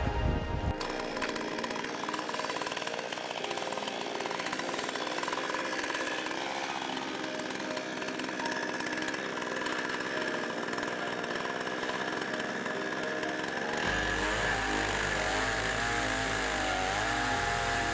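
HAIGE HG-F5200 52cc two-stroke chainsaw running steadily under load in a chainsaw mill, ripping a board lengthwise from a log. About fourteen seconds in the engine note starts to waver.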